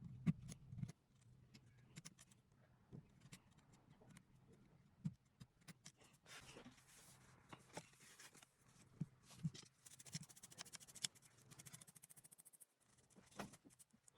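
Faint clicks and scratches of a small tool picking and scraping debris out of a charging port, with a stretch of fast, even scratching about two-thirds of the way through.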